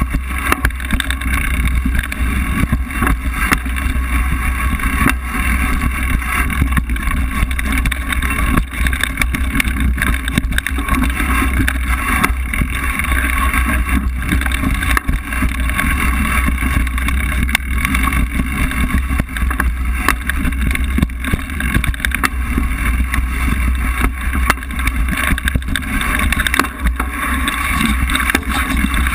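Mountain bike riding over a rough dirt trail: steady wind rush on the microphone, with frequent small rattles and knocks from the bike and tyres on the bumpy ground.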